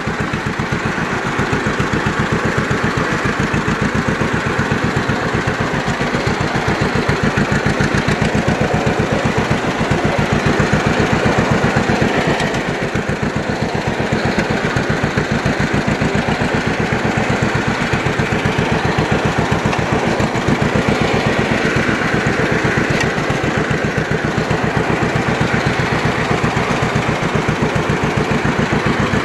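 John Deere Model B's two-cylinder engine running steadily with an even, rapid beat of firing pulses, easing slightly about twelve seconds in, as the tractor creeps in reverse on a feathered hand clutch.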